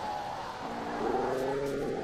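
Brown fur seal calling: one drawn-out pitched call of about a second, starting about halfway in.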